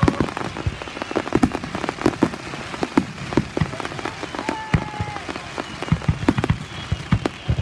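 Fireworks display: aerial shells bursting in an irregular run of bangs and crackling pops.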